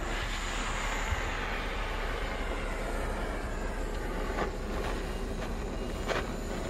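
Handheld butane gas torch running with a steady hissing flame against a cast-iron cauldron lid, heating it so the oil being rubbed in soaks into the iron during seasoning. A couple of brief scrapes from the oiled cloth being rubbed over the lid come about four and six seconds in.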